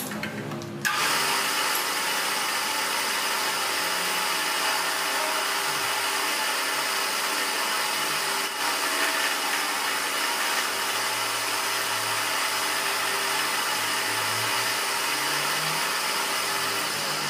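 A machine spindle starts up about a second in and runs steadily, a small cutter in its drill chuck milling a pocket into an aluminium piston crown: a steady whirring hiss with several steady humming tones under it.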